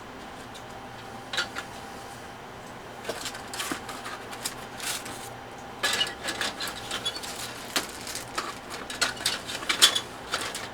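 Plastic model kit parts and packaging being handled: irregular clicks, taps and crinkles, sparse at first and busier from about three seconds in.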